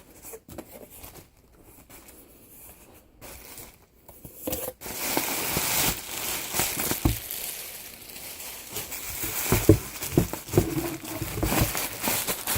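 Packaging being opened by hand: a few soft handling clicks at first, then from about five seconds in, continuous crinkling and tearing of wrapping with occasional knocks.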